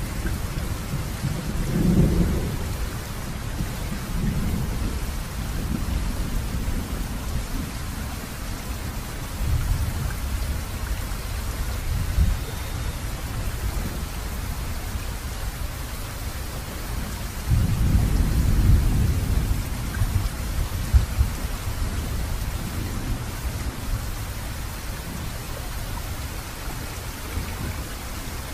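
Steady rain with rumbles of thunder, the strongest near the start and again a little past the middle.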